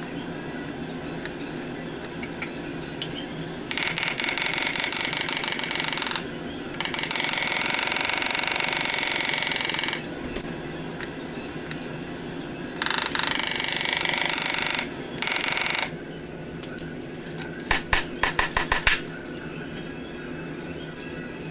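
A workshop power tool run in several bursts of one to three seconds each over a steady background hum, ending in a quick string of about six short blasts.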